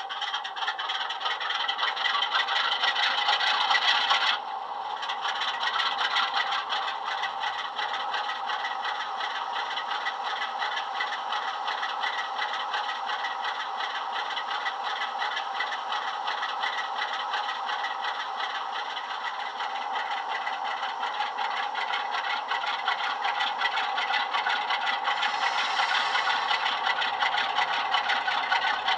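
A DCC sound decoder in a Bachmann OO-gauge Class 47 model plays a recorded Class 47 Sulzer diesel engine through the model's small speaker. The engine runs with a fast, even beat, dipping abruptly about four seconds in, then builds a little near the end as the model starts to move.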